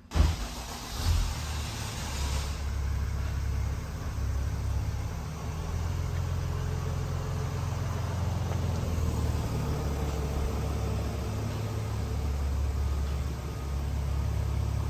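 Car engine idling, a steady low rumble. It comes in abruptly with two louder surges in the first second or so, then settles.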